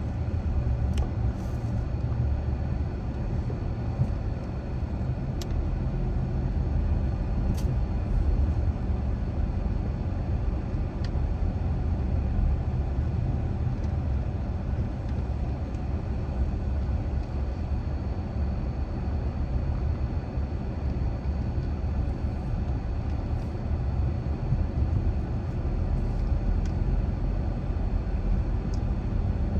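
Car driving at a steady pace, its tyres and engine making a steady, even low rumble, with a few faint small ticks.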